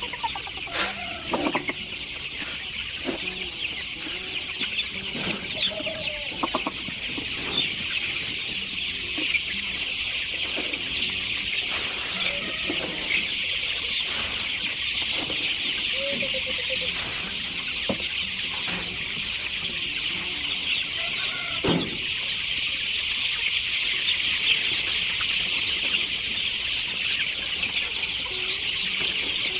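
Free-range chickens clucking, with short calls scattered throughout, over a steady high-pitched hiss.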